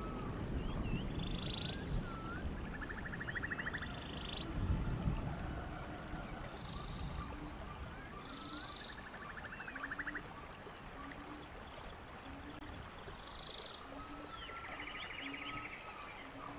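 Outdoor wildlife ambience of animal calls: high chirps, whistled calls and buzzy trills, with short low notes repeating about once a second in the second half. A low rumble underneath fades out after about five seconds.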